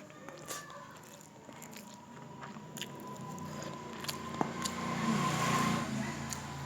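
Close-miked chewing and mouth clicks of a person eating khichuri with beef curry, over a steady background hum that grows louder about five seconds in.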